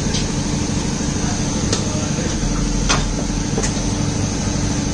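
Steady mechanical hum of workshop machinery, with a few sharp clicks and knocks as a motorcycle tyre is worked onto an alloy rim on a tyre-changing machine.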